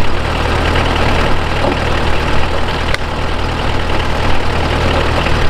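Unimog 411's four-cylinder diesel engine running steadily while it drives a Pfanzelt cable winch that drags a log in, with a single sharp click about three seconds in.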